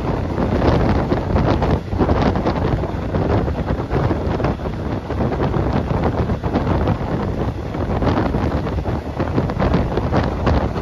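Wind buffeting the microphone: a loud, rough rumble heaviest in the low end, going on without a break.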